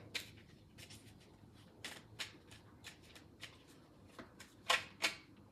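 A tarot deck being shuffled by hand, making soft, scattered card rustles and flicks, with the two loudest near the end.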